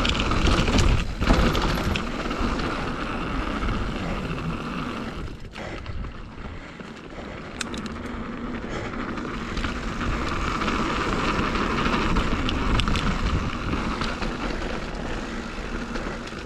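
Mountain bike descending a dirt trail at speed: a continuous rushing noise with heavy, buffeting low rumble, tyres rolling over dirt, and scattered sharp clicks and rattles from the bike. The noise dips briefly about five to seven seconds in, then builds again.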